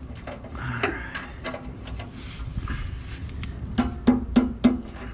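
Metallic clicks and knocks of a wrench working the 17 mm oil pan drain nut, with a quick run of four ringing knocks near the end.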